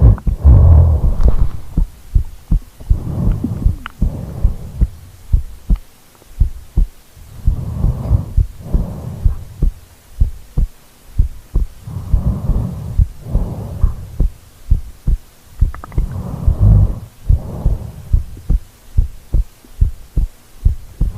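A sleeping person's heartbeat picked up by a microphone pressed against the body, beating in a steady rhythm of low thumps. Slow, deep breaths rise and fall over it every few seconds.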